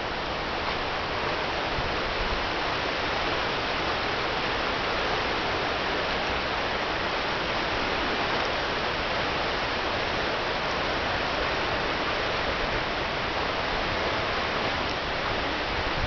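Bronx River rapids: shallow river water rushing over rocks, a steady even rush.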